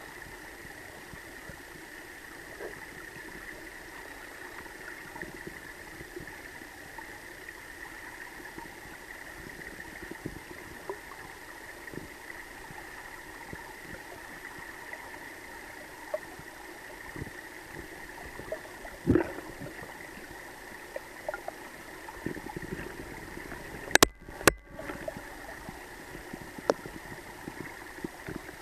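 River water flowing past the bank: a steady rush with scattered small clicks. A sharp knock comes about two-thirds of the way in, and a pair of sharp knocks follows a few seconds later, the sound briefly cutting out between them.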